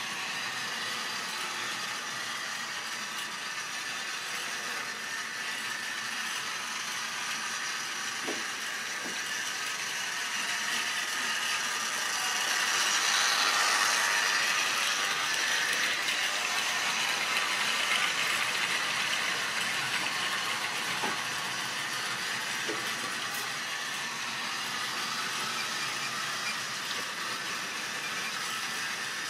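Model railway goods train of open wagons running on the track, a steady mechanical rattle and whirr with a few light clicks of wheels over rail joints. It grows louder as the wagons pass close by, a little before the middle, then eases off.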